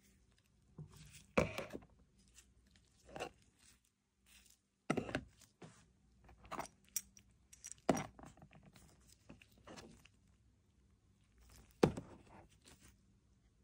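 Camera side handles and their metal mounting brackets being picked up and set down on cardboard boxes: a series of separate knocks and clatters, the sharpest about one and a half, five, eight and twelve seconds in.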